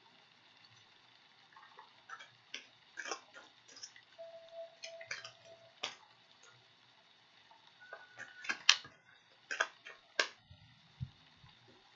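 Tarot cards being handled on a table: scattered light taps and clicks at an irregular pace, with a louder cluster of sharp clicks between about eight and ten seconds in.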